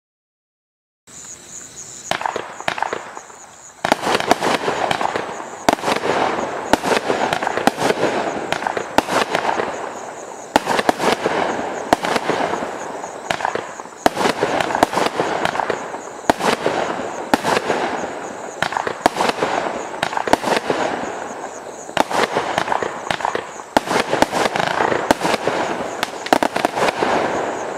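A 25-shot consumer firework cake (Legend 'Bad Like Crab', flaming balls and reports) firing in a steady sequence, about one shot a second, each launch followed by its bursting report. It begins with a quieter couple of seconds before the first shot.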